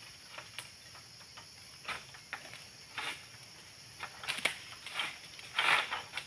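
Irregular short rustles and scrapes as a long-pole oil palm harvesting sickle is worked among the palm fronds, a few louder scrapes about halfway through and near the end.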